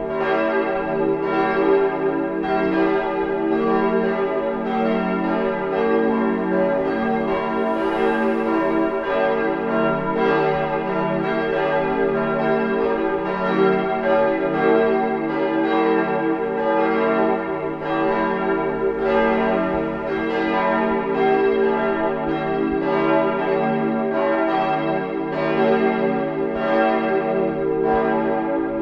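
Full peal of church bells: several swinging bells ringing together, their strokes overlapping in a steady repeating pattern while the tones sustain between strikes. The bells are rung to call people to Sunday service.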